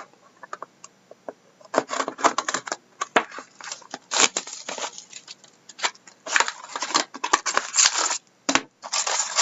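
Plastic wrapping and foil card packs being torn open and handled, crinkling and rustling in irregular bursts. A few faint clicks come first, then the crinkling starts about two seconds in.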